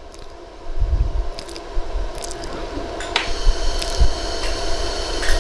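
100-joule iWeld laser welder firing a few irregular pulses, each a sharp snap, over a steady machine hum. The pulses are burning off some of the hand cream that covers the diamond.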